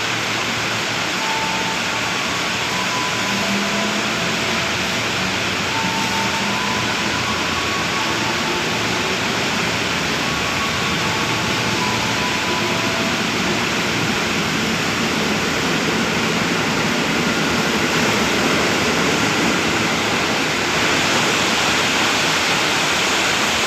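Heavy rain pouring steadily, with a few faint short tones in the first half.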